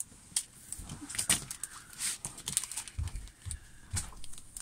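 Handling of a diamond-painting canvas under its clear plastic cover film: irregular light clicks and crinkles as a hand presses the film and lays a tape measure across the canvas.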